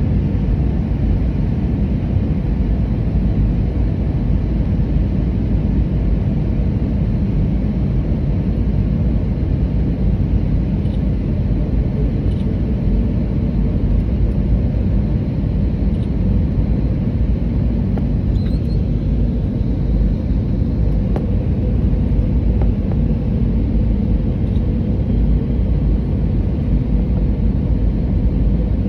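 Steady low rumble of airflow and engine noise heard inside an Airbus A321 airliner during its landing approach.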